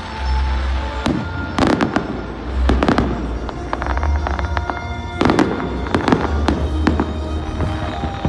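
Fireworks display going off: clusters of sharp bangs and crackling, several times over, with music playing underneath throughout.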